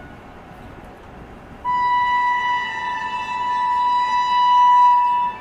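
Electric locomotive's horn sounding one long steady blast, starting about a second and a half in, over the low rumble of the approaching express train.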